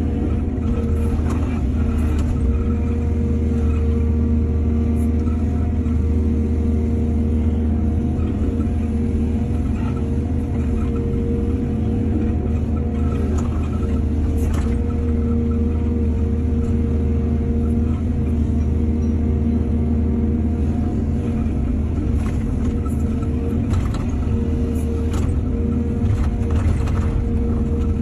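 Excavator's diesel engine running steadily under load, with a few short knocks scattered through.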